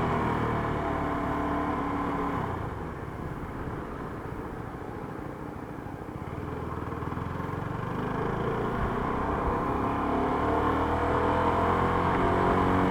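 CFMoto 300SR's single-cylinder engine through its stock exhaust while riding: the revs fall at first and the engine runs quieter for several seconds, then it pulls up through the revs again toward the end.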